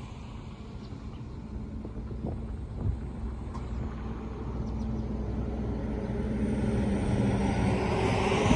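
A road vehicle approaching: a low engine rumble with tyre noise that grows steadily louder, with a high whine rising in pitch near the end.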